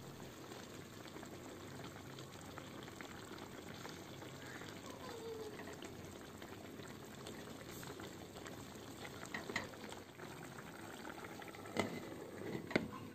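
Pan of spaghetti, tomato and vegetables boiling steadily in water in a nonstick frying pan, stirred with a wooden spatula. Near the end come a couple of sharp knocks as a glass lid is set on the pan.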